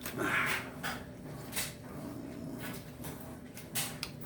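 Close-up eating sounds: chewing and wet mouth clicks and smacks, with a brief louder noisy sound about a quarter second in.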